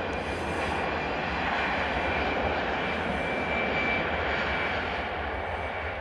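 Airbus A320 jet engines running loud as the airliner rolls along the runway: a dense, steady rush with a thin, high whine on top, swelling slightly in the middle and easing toward the end.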